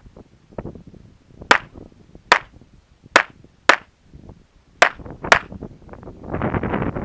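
Browning Buck Mark .22 LR pistol firing six sharp shots, spaced unevenly from about half a second to over a second apart. Near the end, gusty wind buffets the microphone.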